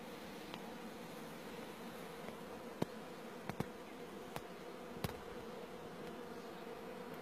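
Steady buzzing of insects, like bees, with five sharp clicks in the middle, the first the loudest.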